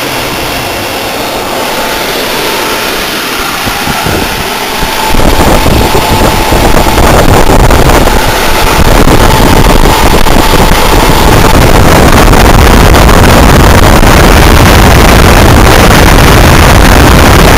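A 1-ton AMCOR window air conditioner running, its fan blowing steadily with a faint steady whine. About five seconds in, the unit's air stream starts buffeting the microphone with a loud, low rumble of wind noise.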